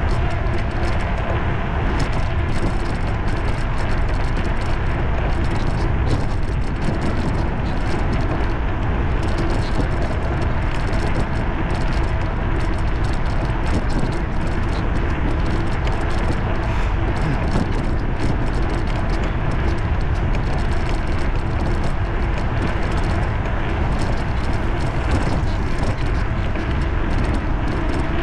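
Steady wind rush on the microphone and tyre noise from an electric bicycle riding along a paved path, with a few faint steady tones running under it.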